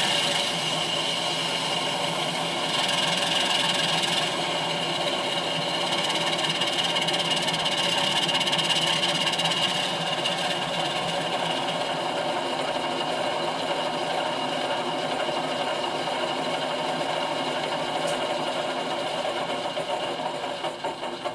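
Model locomotive's LokSound 5 sound decoder playing a diesel engine idling steadily through the model's small speakers. Near the end the engine sound starts to fade in uneven pulses.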